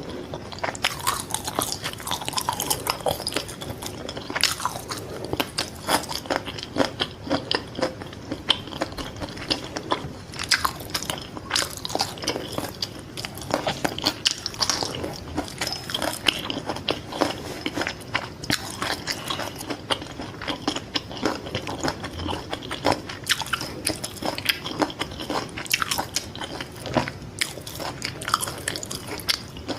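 Close-miked chewing of fried fish balls: crisp crunches and wet, squishy chewing, repeated irregularly through the whole stretch.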